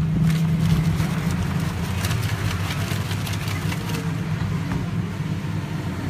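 Plastic milk tea cup crackling and clicking as it is gripped and moved, in quick irregular clicks for the first four seconds or so, over a steady low engine-like rumble.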